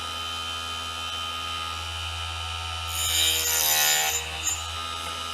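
Small hobby drop saw's motor running with a steady hum, and about three seconds in the spinning blade cuts through a small piece of timber for about a second, the motor's pitch sagging under the load and recovering as the cut finishes.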